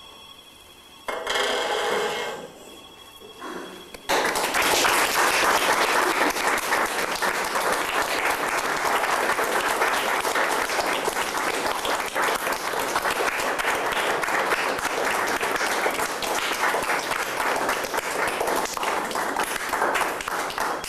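Faint steady tones from the long-string installation, with a brief louder pitched sound about a second in. About four seconds in, an audience breaks into applause, the loudest sound, which goes on steadily.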